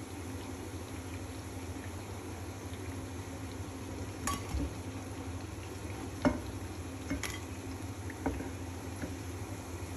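Lentil fritters frying in shallow oil in a pan, a steady sizzle. A steel slotted spoon clinks sharply four times as they are lifted out, the loudest clink about six seconds in.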